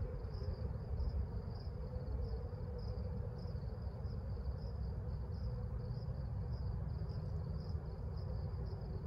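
Crickets chirping steadily, about two high chirps a second, over a steady low rumble.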